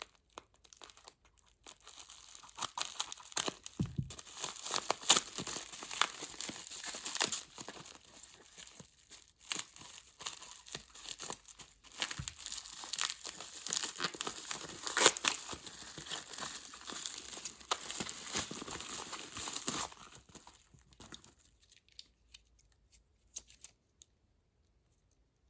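Packaging wrap being crinkled and torn off the cordless phone handsets, in a long run of crackling with sharp rips, thinning to a few scattered clicks near the end.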